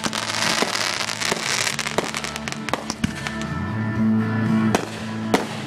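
Aerial fireworks crackling in the first couple of seconds, then several scattered sharp bangs. Music plays steadily underneath.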